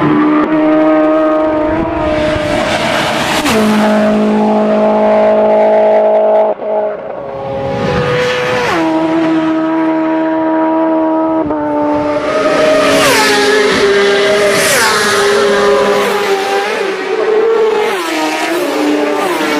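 Racing motorcycles passing fast one after another, engines at high revs. Several times the sound swells as a bike goes by close, then drops in pitch.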